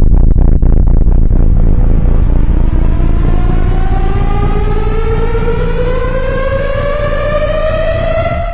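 A loud, steadily rising whine with several overtones, like a siren winding up, climbing slowly over a low rumble that fades as the pitch goes up, then cutting off abruptly near the end.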